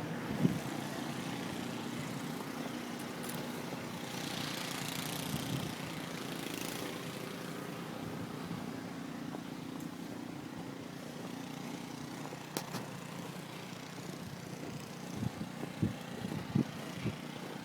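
An engine running steadily, with a low hum, and a few faint knocks near the end.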